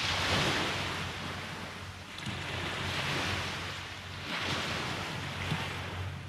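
Sea waves breaking and washing up a beach: the surf swells and fades about three times, loudest near the start. A low steady rumble runs underneath.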